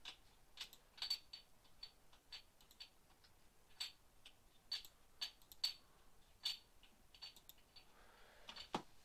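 Faint, irregular clicking from a computer mouse and keyboard, about two sharp clicks a second.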